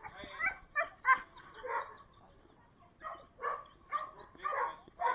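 Dogs in shelter kennels barking repeatedly, short barks at irregular intervals, with a pause of about a second near the middle.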